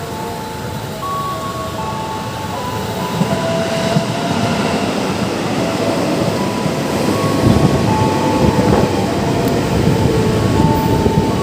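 Electric commuter train running by, its rumble and wheel clatter growing louder from about halfway through. A high whine stepping between several fixed pitches runs over it.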